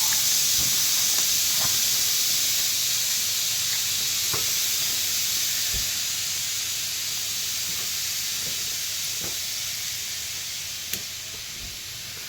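Compressed air hissing steadily out of an air compressor tank through the valve at its bottom, slowly fading as the tank empties. A few faint knocks and a sharp click about eleven seconds in.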